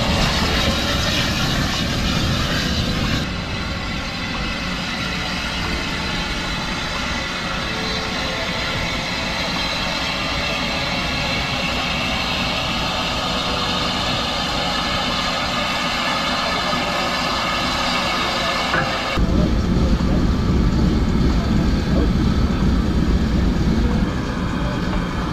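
SECR O1 class steam locomotive No. 65 heard at close range: a steady hiss with a low rumble. The sound changes abruptly about three seconds in and again near 19 seconds, after which it is louder and deeper.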